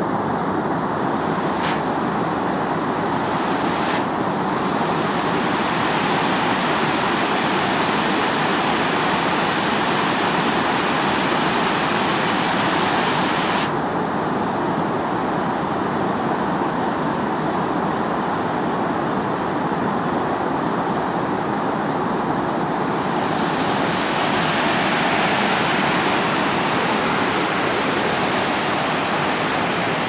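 River water rushing over rocks in rapids and down a waterfall: a steady, loud rush whose hiss brightens and dulls abruptly a few times.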